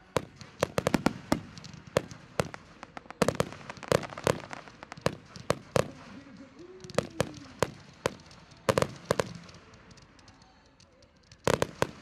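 Fireworks display: a string of sharp bangs and crackles from bursting aerial shells, irregularly spaced, with the loudest bangs about nine seconds in and again just before the end.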